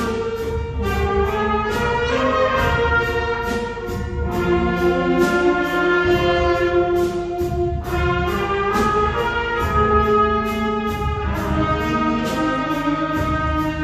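A children's wind band playing: brass and woodwinds holding a melody in long notes over a steady percussion beat of about two strokes a second.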